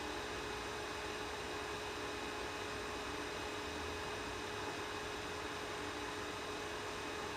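Elegoo Mars UV resin 3D printer running during a print: a steady hum and fan-like hiss with a thin, constant whine, no starts or stops.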